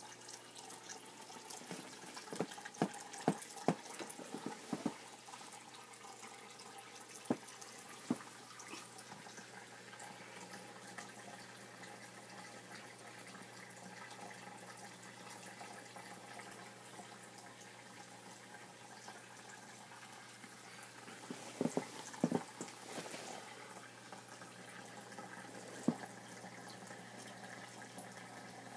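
Small terrarium filter pouring water into the tank's pool: a steady trickle and splash with a faint low hum. Sharp clicks and knocks break in now and then, in a cluster in the first few seconds and again about three quarters of the way through.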